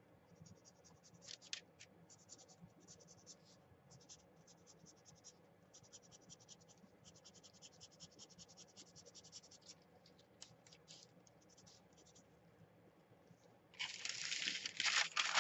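Copper felt-tip marker scratching along the edge of a paper page in many quick short strokes, coming in runs with brief pauses. A louder rustling scrape of paper near the end.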